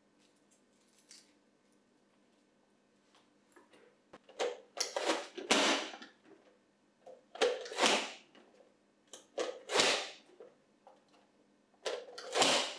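Push-down plastic vegetable chopper dicing onion: after a few near-silent seconds, four presses about two seconds apart, each a crunch of onion forced through the blade grid and a plastic clack as the lid hits the container.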